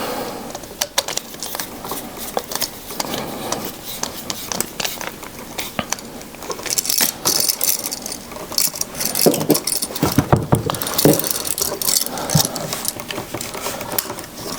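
Irregular small metal clicks, rattles and scrapes as a hooked wire is fastened under an electrical receptacle's terminal screw with a screwdriver and the receptacle is handled.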